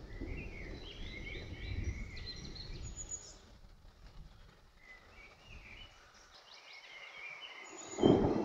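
A songbird sings two phrases of quick high notes over a low rumble. About eight seconds in, a loud clap of thunder breaks in.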